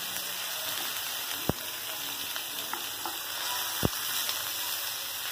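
Catla fish pieces sizzling steadily as they shallow-fry in coconut oil in a nonstick pan over a medium-high flame. A few sharp clicks come from the spoon and wooden spatula knocking the pan as the pieces are turned.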